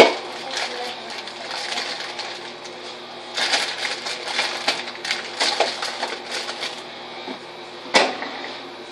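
Someone rummaging in a refrigerator: a click, then a few seconds of quick crackly rustling of plastic packaging, and a single sharp knock near the end.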